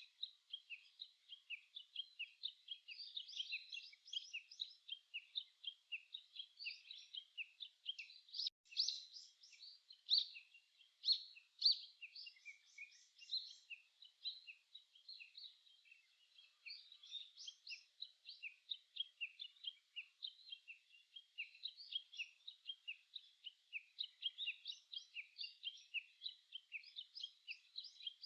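Many small songbirds chirping and twittering together in a dense, continuous chorus, with a few louder, sharper notes about nine to twelve seconds in.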